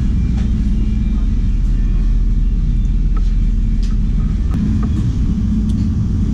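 Loud steady low rumble, with a few faint light clicks of a plastic spoon scraping a paper food box.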